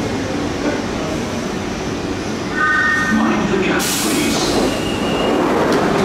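London Underground 1992 stock tube train moving slowly along the platform, with steady running noise. A brief whine of a few steady tones comes near the middle, then a loud hiss of air about four seconds in.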